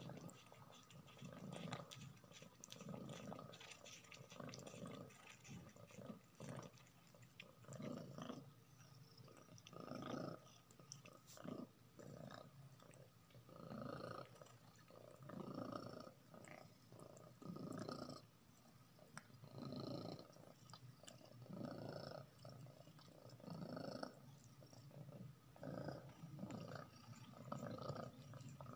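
A domestic cat licking and chewing soft banana flesh close up, in quiet swells every second or two with small wet clicks, and a low purr underneath.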